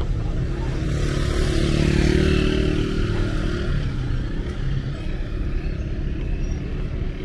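Street traffic rumbling, with one motor vehicle passing close by: its engine and tyre noise swell to a peak about two seconds in, then fade.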